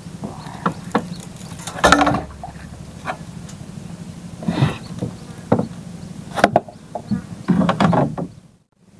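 Small boat engine idling with a steady low throb, under irregular knocks and rustles as fishing line is hauled in and handled in the wooden boat.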